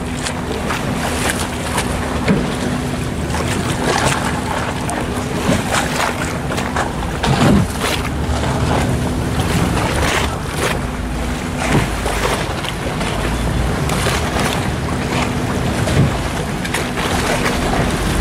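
Boat moving on the water: rushing, lapping water and wind buffeting the microphone, over a steady low hum.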